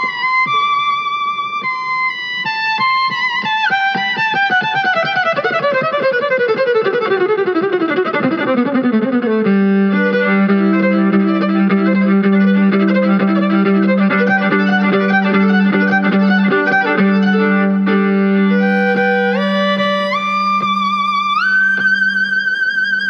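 Violins playing the closing passage of a piece: a long slide down to a low held note near the open G string, with quick notes over it. Near the end they climb in steps to a high note held with vibrato, and the music stops.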